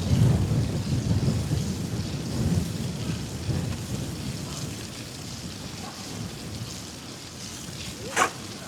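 Wind buffeting the microphone and bicycle tyres hissing over a wet, slushy street while riding, the low gusty rumble easing after the first few seconds. A brief sharp squeak near the end.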